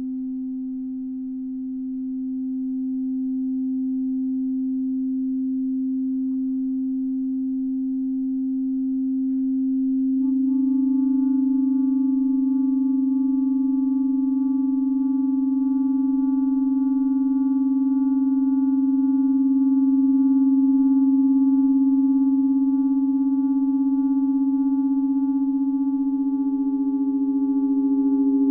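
A clarinet sustains long, steady tones against an electronic sine wave, the two pitches close together. About a third of the way in, the clarinet's note shifts slightly higher and turns fuller, and the loudness takes on a fast, fluttering beat where the two tones rub. Near the end a second, higher steady tone joins in.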